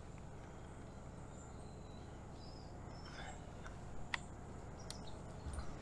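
Faint outdoor background noise with a few soft bird chirps, and one sharp click about four seconds in from handling the folding camp chair's frame.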